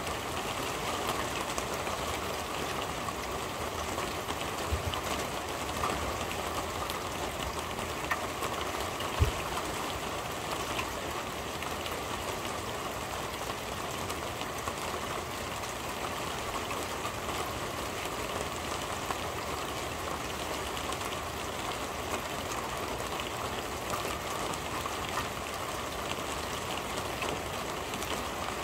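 Steady rain drumming on a corrugated metal roof, heard from underneath, with scattered sharper drip ticks. A single low thump about nine seconds in.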